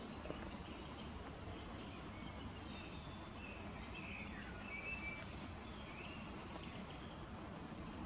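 Faint song of a nightingale: scattered short whistled notes and a falling note about four seconds in, over a low steady rumble of background noise.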